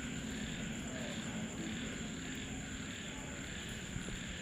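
Night insects, crickets among them, calling steadily: a constant high trill with a softer pulsing chirr beneath it.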